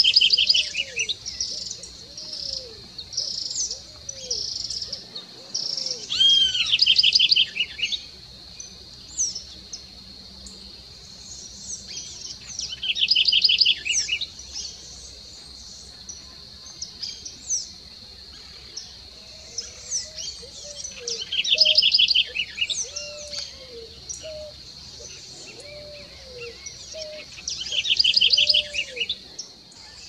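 Southern house wren singing: a fast run of trilled notes about a second and a half long, repeated every six or seven seconds, with short high chirps between phrases. Under it run a steady high tone and, for stretches, low rising-and-falling notes at about one a second.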